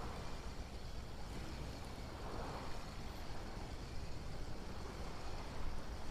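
Wind rumbling on the microphone over a steady outdoor wash, with a soft swell of noise about halfway through, like surf at the shore.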